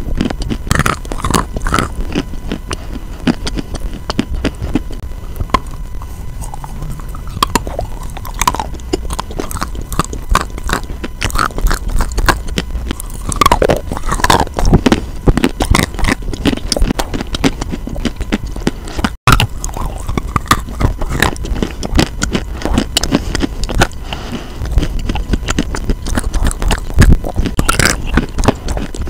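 Close-up biting, crunching and chewing of a dry lump of chalk, picked up by a lavalier microphone held at the lips. The crunches are irregular and crisp, and the sound cuts out for an instant about two-thirds of the way through.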